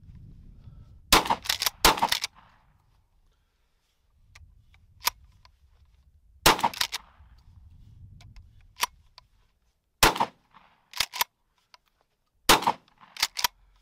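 Rock Island All Gen 12-gauge pump shotgun firing low-brass birdshot, several shots a few seconds apart, each followed by the clack of the pump being racked to chamber the next shell.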